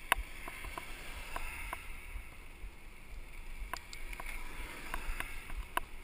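Mountain bike riding on asphalt, heard from a camera on its handlebars: steady wind and road rumble, broken by a dozen or so sharp, irregular clicks and knocks as the bike and its mount rattle over the road surface.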